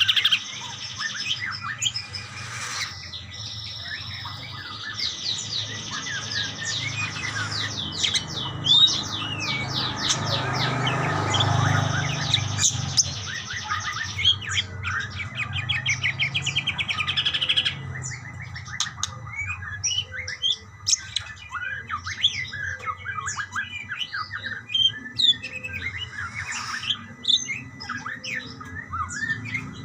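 Several budgerigars chattering and calling back and forth, a dense, continuous warble of quick chirps, trills and squawks. A low rumble runs beneath and swells about ten seconds in.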